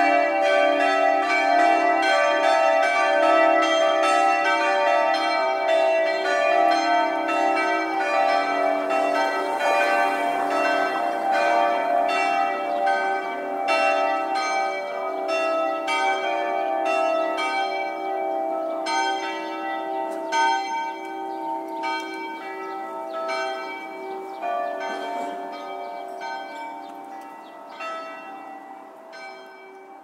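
Church bells ringing: many strikes in quick, irregular succession over the long, overlapping ring of their tones, growing gradually fainter through the second half.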